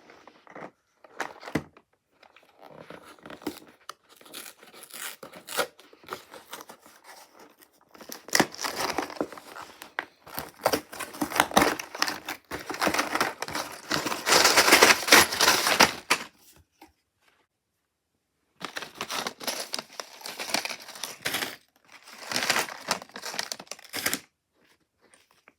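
LEGO set packaging being torn open and crinkled by hand, in long spells of tearing and rustling that are loudest in the middle. It breaks off for about two seconds and then goes on in two shorter spells.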